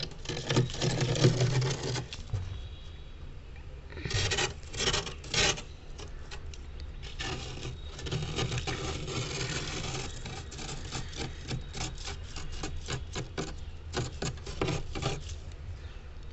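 Metal spoon scraping frost off a freezer wall in a run of uneven strokes. The strokes are louder near the start and again around four to five seconds in, then come quicker and shorter.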